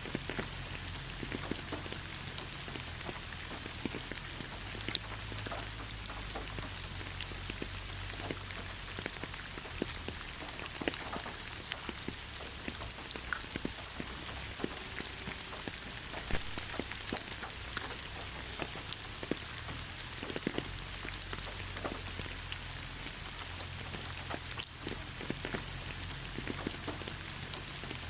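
Steady rain falling, a continuous patter with many individual drops ticking and spattering close by.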